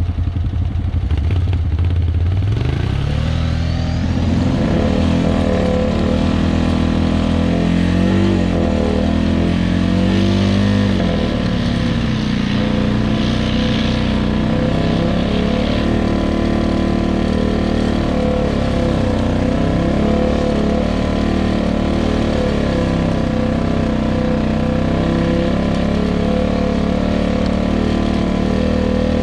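Tracked ATV's engine revving up about two seconds in, then running under load through soft boggy grass. Its pitch wavers with the throttle before settling into a fairly steady drone.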